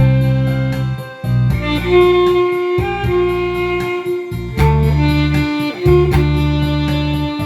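Alto saxophone playing a slow melody in long held notes over a backing track with a steady beat.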